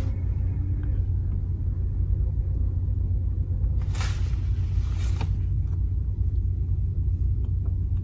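Steady low rumble inside a car stopped at a traffic light, the engine idling, with two short bursts of hiss about four and five seconds in.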